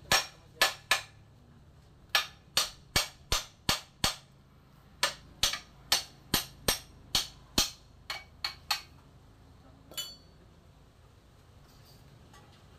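Hammer blows on a motorcycle's steel rear frame while fitting a mono shock: runs of sharp metal-on-metal strikes at about two to three a second, each with a short ring, broken by brief pauses, with one last blow about ten seconds in.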